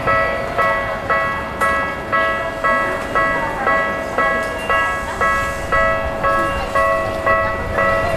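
Japanese railway level-crossing alarm ringing, a bell-like tone struck at an even beat of about two a second, warning that a train is coming.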